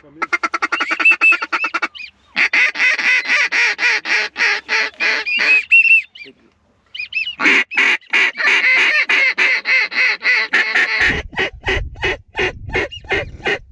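Hand-held goose call blown in long runs of rapid clucks, about ten notes a second, with two short breaks. Near the end the notes come slower over the low rumble of wind on the microphone.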